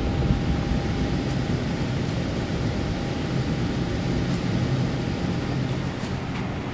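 Steady aircraft cabin noise inside a Boeing 747-8 taxiing in after landing: an even low rumble with a hiss of air conditioning over it.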